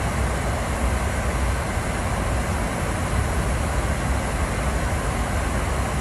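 Steady flight-deck noise of an airliner cruising at about 39,000 feet: a constant rush of air and engine drone, heaviest in the deep low end, with no change in level.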